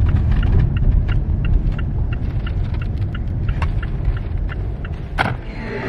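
Low road and engine rumble inside a car cabin while driving, with a turn-signal indicator ticking steadily a few times a second. A single sharp click comes near the end.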